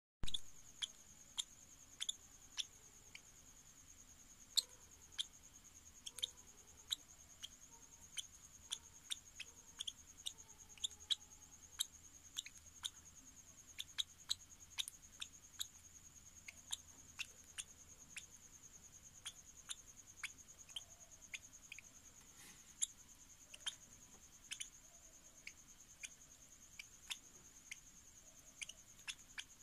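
A lovebird's beak clicking and tapping against a plastic spoon as it eats soft mash, in sharp irregular clicks about one to three a second, over a faint steady high whine.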